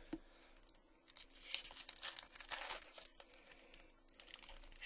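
A trading-card pack wrapper being torn open and crumpled by hand. It comes in spells of rustling, one from about a second in lasting nearly two seconds, and another starting near the end.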